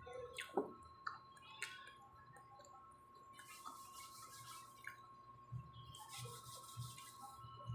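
Faint eating sounds from a person chewing close to the microphone: a few soft mouth clicks and smacks early on, then two breathy hissing stretches of about a second each.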